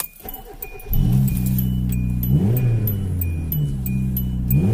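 Straight-piped 1.6 Hyundai Accent four-cylinder starting about a second in and idling, revved briefly twice, heard from inside the car. The exhaust has just been patched and it sounds a lot better, with only a small leak left. A short high beep repeats about twice a second over it.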